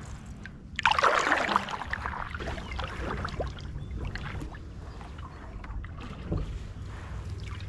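A canoe paddle dips into the water about a second in with a sudden splashing stroke. Water then swirls and trickles off the blade as the canoe glides, with small drips and splashes.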